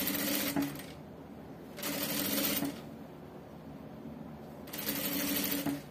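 Industrial straight-stitch sewing machine stitching bias tape onto a skirt edge in three short runs of about a second each, with pauses between as the fabric is guided around the curve.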